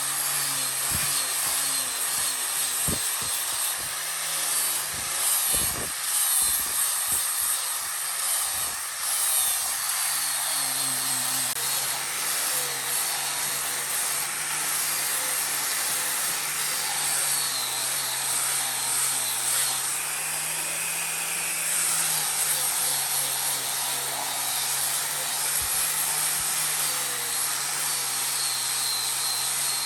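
An electric power tool's motor runs steadily with a hissing whine, its pitch rising briefly about two-thirds of the way through. Scattered knocks come in the first few seconds.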